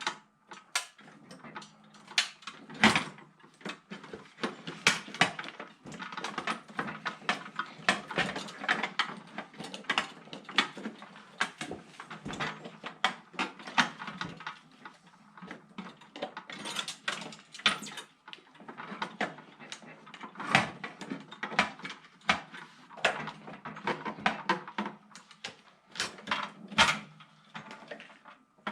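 Metal hand tools clinking and clattering against each other and the sides of a metal toolbox drawer, with many irregular knocks and clicks as they are shuffled around.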